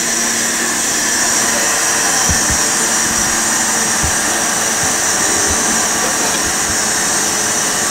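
Steady, loud rushing noise, with a few soft knocks of a knife blade on a wooden cutting board as seared steak is sliced.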